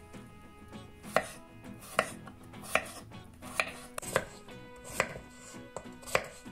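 Kitchen knife chopping peeled raw potatoes into cubes on a wooden cutting board: a sharp knock of the blade through the potato onto the board, about eight cuts at an uneven pace of roughly one a second.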